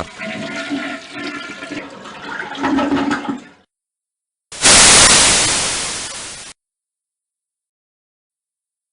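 A rushing noise sound effect with faint steady tones in it cuts off about three and a half seconds in. After a second of dead silence, a loud burst of static-like white noise starts abruptly and fades away over about two seconds, and it then falls dead silent.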